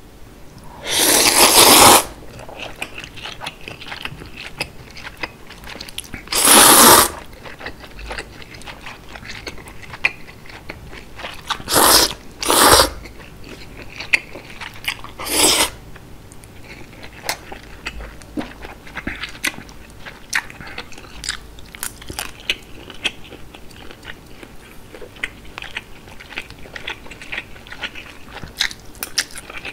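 Close-miked slurping and chewing of chewy jjolmyeon noodles in broth. Five loud slurps come in the first half, two of them close together about twelve seconds in; between and after them run steady wet chewing, small smacks and clicks.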